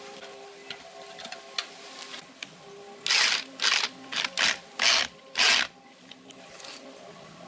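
Power drill with a screwdriver bit driving screws through a steel hinge into a wooden door, in about six short bursts over roughly three seconds, starting about three seconds in.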